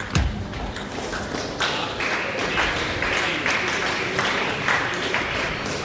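A table tennis rally ends with a last ball click and a foot stamp. Then the hall audience applauds for about four seconds, with a few light taps of the celluloid ball.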